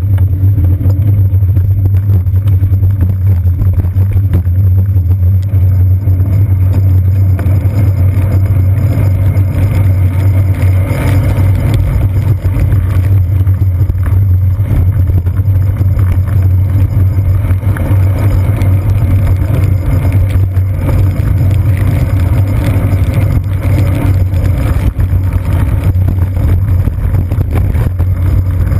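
Steady, loud low rumble of a bicycle ride over wet city pavement, picked up through a seat-post-mounted GoPro's sealed housing, with muffled road traffic mixed in.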